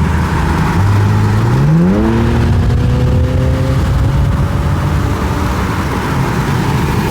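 Infiniti Q60's engine pulling under hard acceleration. Its pitch climbs sharply about a second and a half in, then keeps rising slowly as the car gathers speed.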